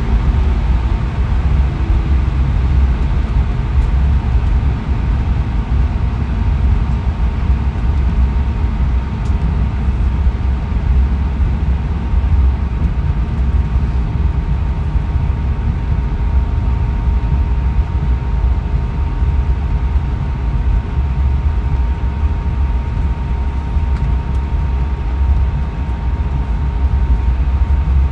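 Airbus A320 cabin noise while taxiing: a steady low rumble with a faint, constant whine above it.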